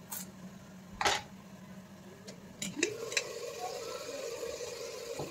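Two sharp knocks of a knife on a plastic cutting board. Then the metal lid of a pressure cooker clicks as it is lifted off, and the chicken browning in the open cooker sizzles steadily.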